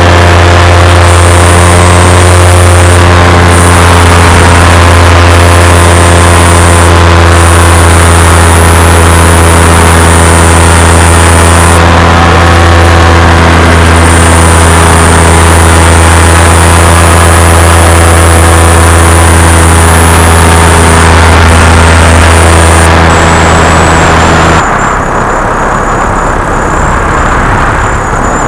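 Paramotor engine and propeller running at a steady cruise throttle, a loud, even drone. About 25 seconds in it changes abruptly to a duller, slightly quieter rush of engine and wind.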